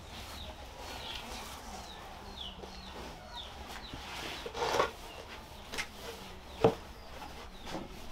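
A person shuffling across a dirt floor and settling onto a low wooden box, with a few knocks of wood; the sharpest knock comes about two-thirds of the way through. Short, high, falling bird chirps repeat through the first half.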